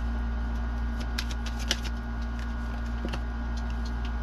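Tarot cards being drawn from the deck and laid down on a cloth-covered table: a few light clicks and flicks spread through, over a steady electrical hum.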